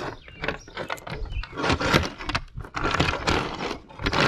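Steel saw chain clinking and rattling in quick irregular clicks, with short scraping drags as the links are pulled apart and slid across a tabletop while the chain is untangled.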